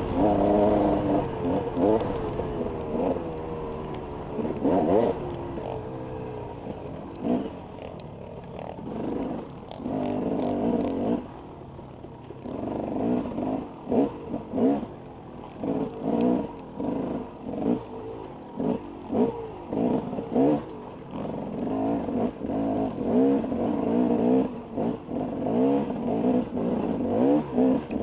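Off-road dirt bike engine revving up and down as the throttle opens and closes; in the second half it comes in quick surges about once a second.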